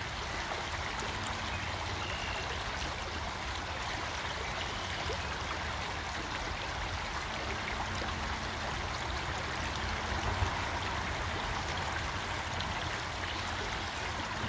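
Creek water running steadily over rocks, with a single faint knock about ten seconds in.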